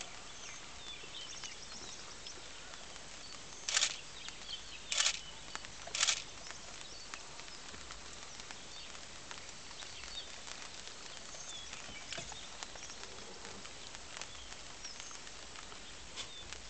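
Outdoor ambience in a light drizzle: a steady hiss with faint, scattered bird chirps. Three short, loud bursts of noise come about four, five and six seconds in.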